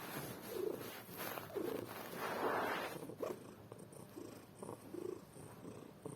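Domestic cat snoring in its sleep: a series of low snoring breaths, with one longer, noisier breath about two to three seconds in.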